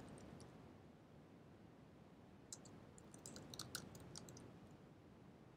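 Faint typing on a computer keyboard: a few light keystrokes right at the start, then a quick run of keystrokes from about two and a half to four and a half seconds in.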